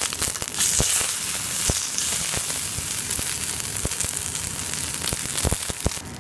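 Matsusaka beef fillet steak sizzling and spitting in fat in a cast-iron frying pan over turned-down heat, with scattered pops. The sizzle swells briefly about half a second in as the steak is turned with tongs onto a fresh side.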